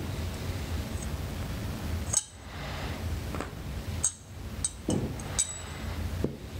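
Small metal clinks, about five over four seconds, as the octave key mechanism and its pivot rod are taken off an alto saxophone neck and handled, with a low rumble during the first two seconds.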